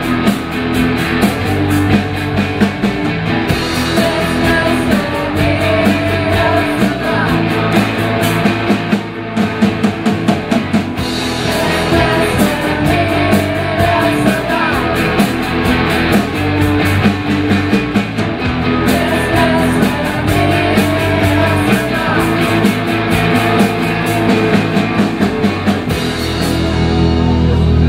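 Live rock band playing: electric guitars, bass guitar and a drum kit keeping a steady beat, with a singer's voice over them. Near the end the drumming stops and a final chord rings out.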